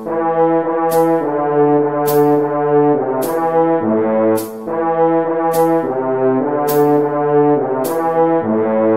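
French horn playing a melody of short repeated-note phrases, over a backing beat with a sharp cymbal-like tick about once a second.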